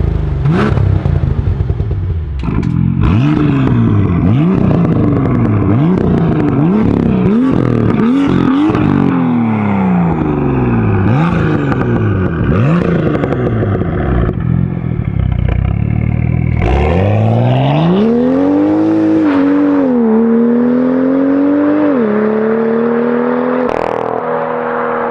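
BMW M2's N55 turbocharged straight-six through a 3.5-inch straight-pipe exhaust with the valves open, bypassing the rear silencer. The revs are blipped up and down in quick succession, about once a second, then climb and are held high with two short dips.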